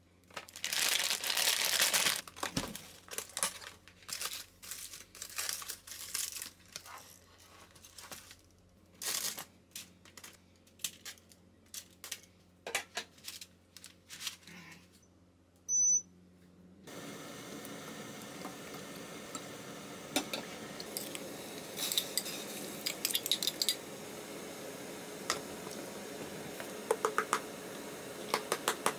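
Aluminium foil and paper crinkling and rustling in bursts as hands unwrap and handle a foil-lined fried-chicken box, with a short high beep about two-thirds of the way through. Then a steady hiss from the stove under a small pot of kimchi broth, with a few light clinks.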